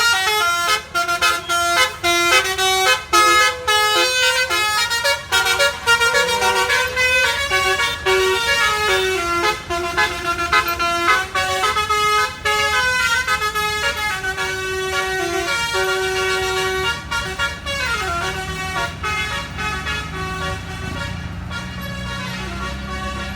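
Bus telolet basuri air horn playing a quick melody of stepping, pitched horn notes. The tune slowly fades, and near the end a low engine rumble comes up under it.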